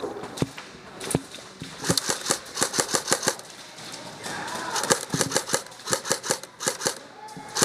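Airsoft guns firing: several rapid strings of sharp plastic-BB shots, about seven a second, with a few heavier single knocks near the start.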